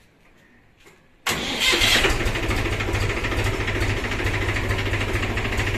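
Mahindra 265 DI tractor's three-cylinder diesel engine starting on a cold start, catching suddenly about a second in and settling into a steady idle.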